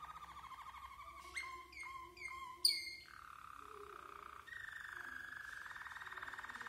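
White Waterslager (Malinois) canary singing its low-pitched song: a fast rolling trill, broken about a second and a half in by a short run of clear ringing notes that end in the loudest, sharpest note, then the rolling trill resumes and grows louder near the middle.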